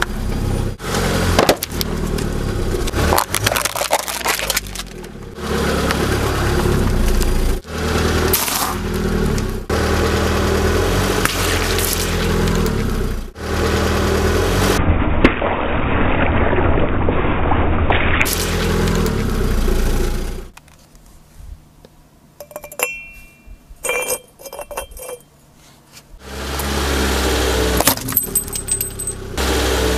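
A car tyre rolling over and crushing a string of objects, with crunching, cracking and breaking sounds, some of them glassy, cut together in short clips. About two-thirds of the way through a much quieter stretch holds only a few light clinks before the crunching resumes.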